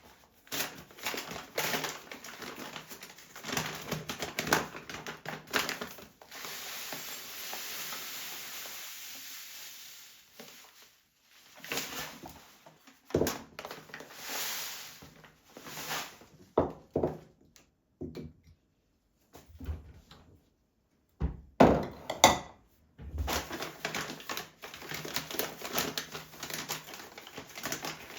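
Handling noises: objects knocked and set down with thunks, packaging crinkling. About six to ten seconds in there is a stretch of steady hissing noise, with short quiet gaps later on.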